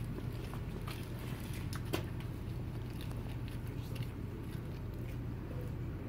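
Steady low outdoor rumble on a phone microphone, with a few faint sharp clicks in the first two seconds.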